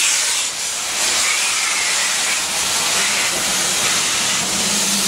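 Steam hissing steadily from standing BR Standard Class 4 2-6-0 steam locomotive 76079, escaping low down around its wheels and cylinders, with a brief dip about half a second in.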